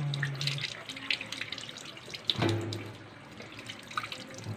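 Kitchen tap running into a stainless steel sink while a tilapia is rinsed and scraped by hand under the stream, with splashing and small handling clicks. A louder knock comes a little past halfway.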